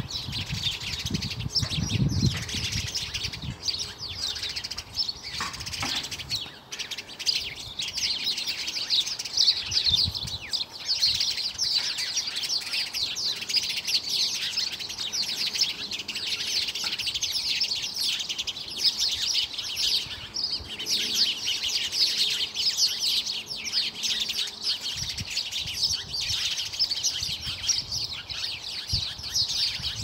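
Many small birds chirping together in a dense, continuous chorus of short overlapping calls. A low rumble sits under the chirping in the first couple of seconds.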